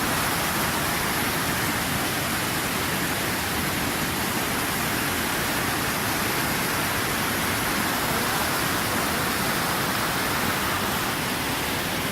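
Steady, unbroken rush of fast-flowing water, even in level throughout.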